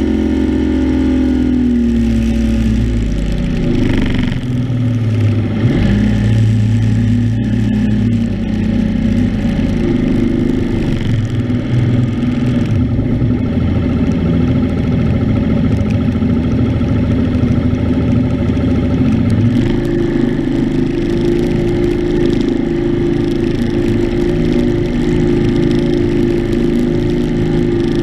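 Mercury 150 outboard motor driving a bass boat at speed, with rushing water and wind underneath. The engine note drops in the first couple of seconds, wavers for a few seconds, then settles, and rises to a higher steady pitch about two-thirds of the way through as the throttle is opened, with a brief dip and rise at the very end.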